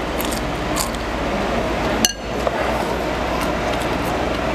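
Eating utensils clinking against ceramic bowls, with one sharp, ringing clink about two seconds in and a few lighter clicks around it, over steady room noise.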